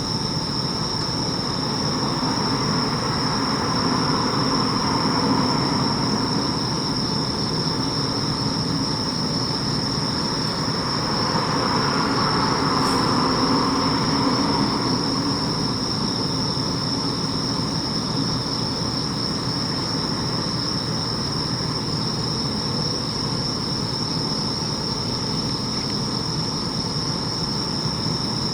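Bell crickets (suzumushi) singing a steady, high, ringing trill. A low rumble swells and fades twice beneath it, near the start and about halfway through.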